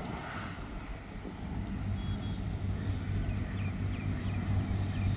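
Steady low motor hum that grows a little louder about a second and a half in, over outdoor wind noise, with repeated short bird chirps.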